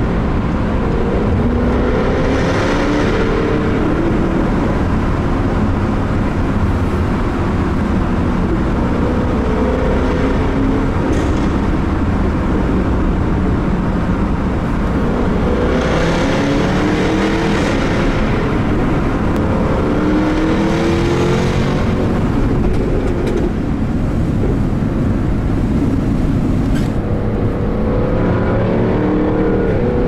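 Jaguar F-Type R's supercharged 5.0-litre V8 accelerating hard in a road tunnel, its pitch climbing in repeated runs about five times, with a harsher exhaust rasp at the top of each run.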